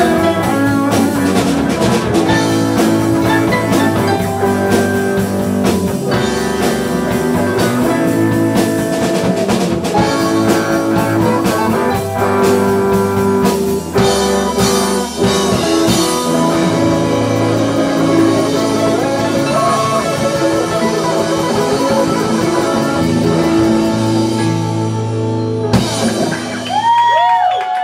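Live band playing a blues-rock song: electric guitar over drums, congas and bongos. The music stops about two seconds before the end, and a few short shouts follow.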